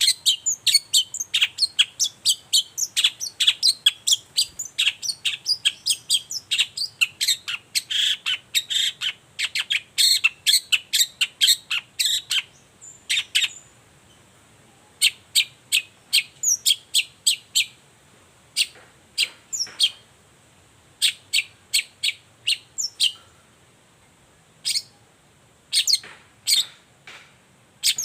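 Long-tailed shrike (cendet) singing: a fast, steady run of sharp, high chirps for the first twelve seconds or so, then shorter clusters of chirps separated by brief pauses.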